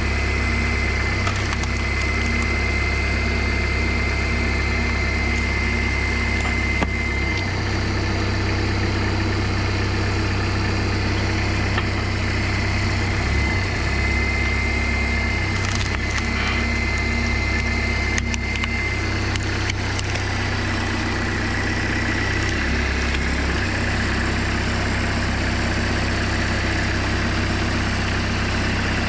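Homemade tractor engine running steadily, driving the hydraulics of a log splitter, its tone shifting a few times as the ram loads up. A high whine comes and goes, and wood cracks now and then as logs are split.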